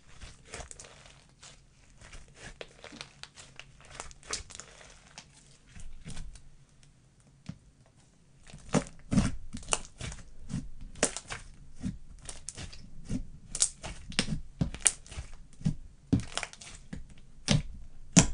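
Thick, glossy slime being kneaded and squeezed by hand: sticky crackling and a run of sharp clicking pops. The pops grow louder and come more often from about halfway through.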